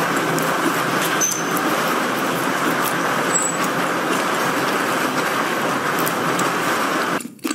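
Storm wind and rain in a steady rushing noise that cuts off suddenly near the end.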